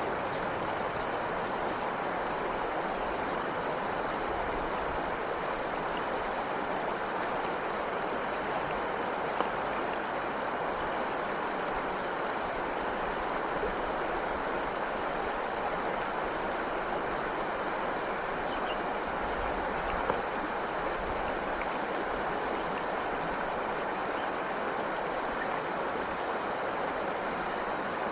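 Stream water running steadily, an even rushing sound. A short high chirp repeats about once a second over it.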